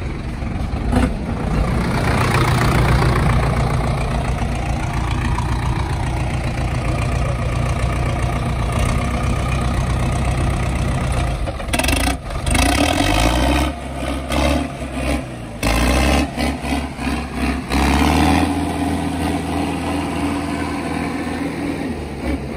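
Diesel tractor engines running hard under load, the revs rising and falling several times, as two tractors coupled back to back by a steel bar pull against each other.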